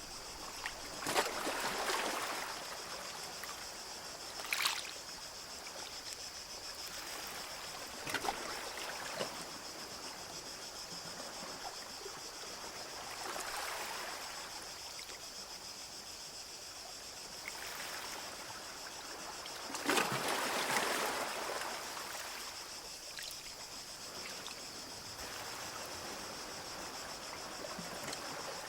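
Small sea waves washing up on a beach: separate swishing surges every few seconds, the biggest about twenty seconds in, over a steady high hiss.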